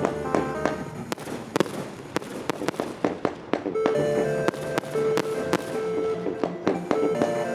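Fireworks bursting and crackling in quick succession, sharp cracks several times a second, with music playing alongside.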